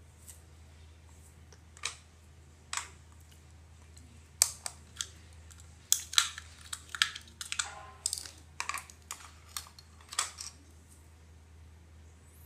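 Irregular sharp clicks and taps of small hard plastic parts being handled: two single clicks, then a quick, uneven run of them for about six seconds, over a steady low hum.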